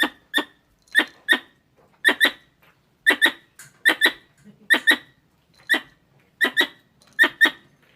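Squirrel calls: sharp, squeaky chirps in pairs, about one pair a second, repeating steadily.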